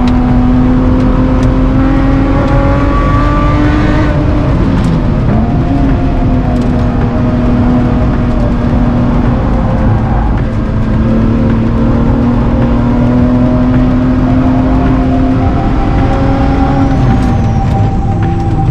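Lotus Exige's supercharged 3.5-litre V6 heard from inside the cabin, driven hard on track. The engine note climbs slowly and falls away sharply about four seconds in, then holds steady, climbs again and drops once more near the end.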